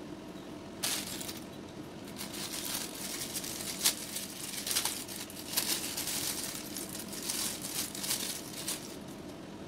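Plastic packaging crinkling and rustling in irregular bursts as it is handled and pulled open, with a sharp click about four seconds in.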